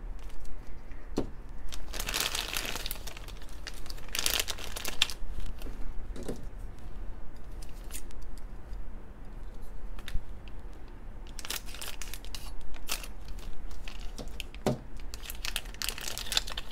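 Thin clear plastic bag crinkling in the hands in several irregular bursts as it is handled.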